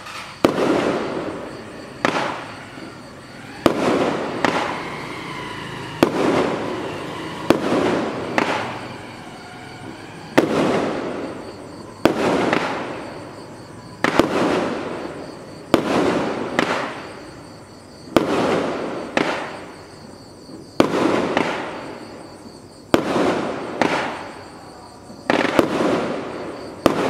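A 25 mm 'Tequila Sunrise' consumer firework cake (16 shots) firing shot after shot. There is a sharp bang every one to two seconds, each trailing off over a second or so.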